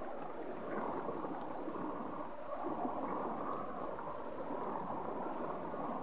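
Shallow stream flowing over rocks, a steady rush and ripple of water.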